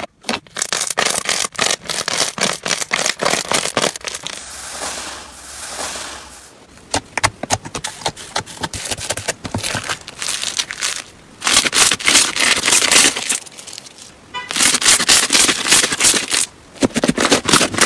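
Hands poking, pressing and squeezing slime, making dense wet crackling and popping as trapped air bursts. It comes in several runs broken by short pauses, with a softer, smoother squish a few seconds in.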